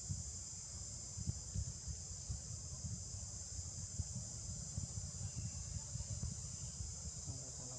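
Steady high-pitched insect chorus droning, with an uneven low rumble underneath.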